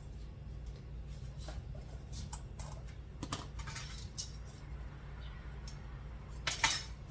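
Light clicks and taps of a measuring spoon and spice containers being handled while black pepper is measured out, with a louder clatter about six and a half seconds in. A steady low hum runs underneath.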